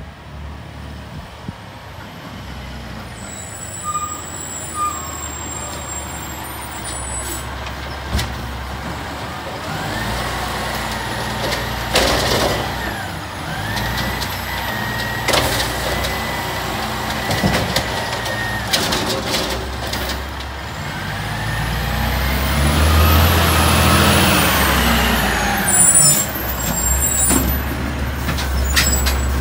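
Automated side-loader garbage truck approaching and pulling up. Its diesel engine grows steadily louder as it nears, with short air-brake hisses. A high steady squeal sounds twice in the middle, and the engine revs up and back down near the end.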